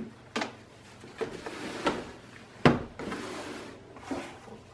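Handling of a cardboard box and a cloth helmet bag as a bagged motorcycle helmet is lifted out: rustling with a few light knocks, the sharpest about two and a half seconds in.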